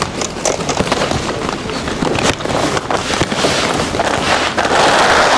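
The heavy plastic wrapping of a compressed clothing bale crackling and tearing as it is cut and pulled open, with many sharp snaps. The crackle builds and is loudest near the end.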